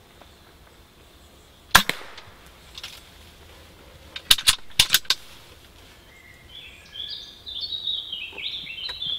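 A single sharp crack of a silenced air rifle shot about two seconds in, a pellet taking a squirrel. A quick cluster of about five sharp clicks follows a couple of seconds later. Near the end a bird sings a run of high stepped notes.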